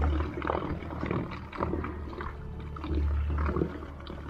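A 36-pound-thrust electric trolling motor running shallow and slow, its propeller churning near the surface and making bubbling, gurgling splashes. Under it runs a low rumble that swells at the start and again about three seconds in.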